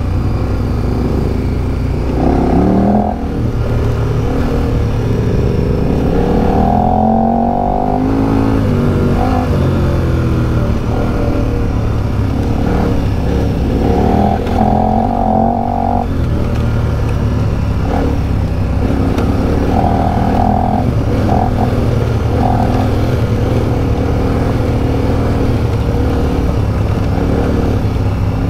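Adventure motorcycle engine running over rough trail, its pitch rising and falling again and again as the throttle opens and closes, over a steady low rumble.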